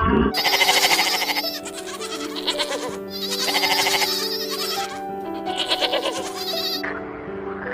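A farm animal bleating in several long, quavering calls, over steady background music.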